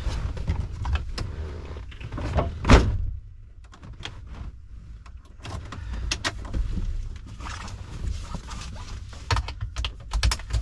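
Knocks, rustling and clicks of someone settling into an old Jeep's driver's seat, with one loud thump about three seconds in. Near the end, a cluster of clicks as the seat belt is pulled across.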